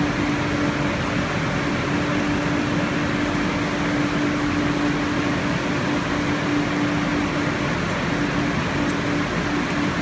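Steady whirring hum of running machinery, like a ventilation fan, with one steady low tone throughout.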